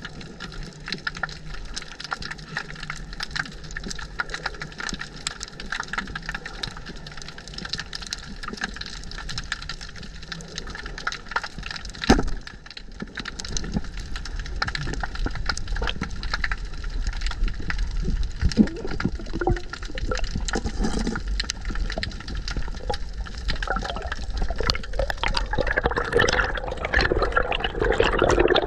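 Underwater sound of a speargun dive: a steady crackle of many small clicks over water hiss, with a single sharp crack about twelve seconds in, the speargun's shot. In the last few seconds water rushing and bubbling grows louder as the diver moves with the speared mullet.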